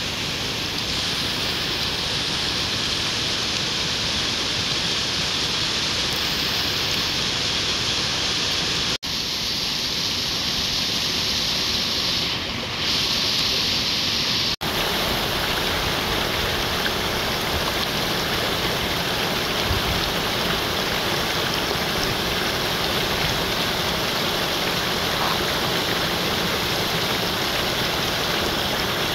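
Mountain stream and small waterfall rushing over rocks: a steady hiss of running water that drops out for an instant twice, about nine and fifteen seconds in.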